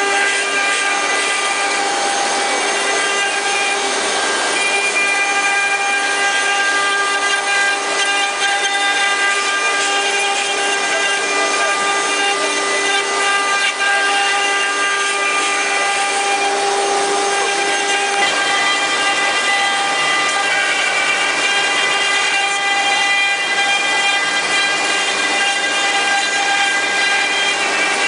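Multi-spindle four-axis CNC wood carving machine running, its router spindles whining steadily at several pitches as the bits carve a row of turning wooden workpieces.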